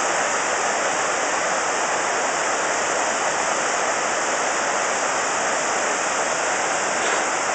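The 9/11 Memorial South Pool's man-made waterfall: sheets of water falling down the pool's walls into the basin with a steady, even rush.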